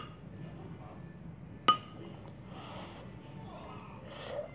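A metal utensil clinks twice against a cut-glass bowl, once right at the start and again about a second and a half later. Each strike rings briefly.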